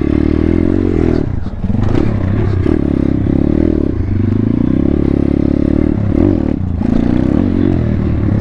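Single-cylinder four-stroke engine of a 140cc Thumpstar pit bike being ridden, revving up and falling back several times, with a brief drop in revs about a second and a half in.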